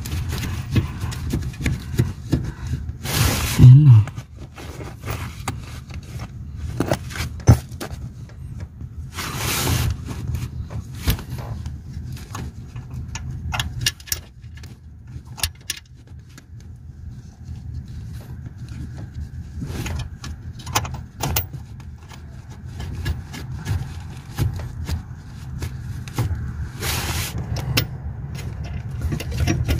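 Hands working on the brake booster studs and pedal linkage under a vehicle dashboard: scattered metallic clicks, scrapes and fumbling, with a few louder rubbing bursts, the loudest about four seconds in.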